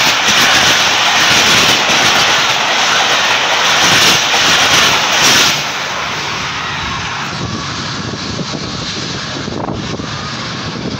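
Passenger train running past close by: a steady, loud rushing rumble of the train on the rails, which drops sharply in level about five and a half seconds in and carries on more quietly.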